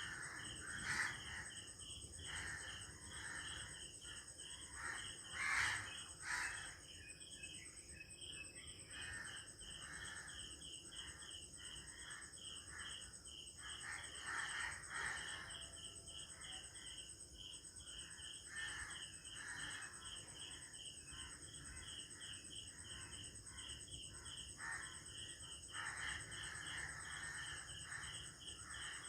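Early-morning rural ambience: crickets and other insects chirping steadily in an even pulsing rhythm with continuous high trills underneath, while birds call now and then over the top, loudest about a second in and again around five seconds in.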